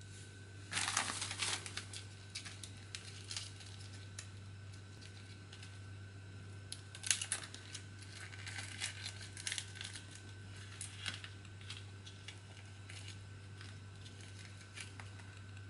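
Clear plastic packaging crinkling as it is handled and opened, with small clicks of metal soldering iron tips being taken out and set down; the loudest crinkling comes about a second in and again around seven seconds in. A steady low hum runs underneath.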